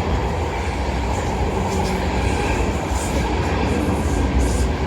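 Class 458 electric multiple unit running past on the line, a steady rumble of wheels and traction equipment with a faint steady hum.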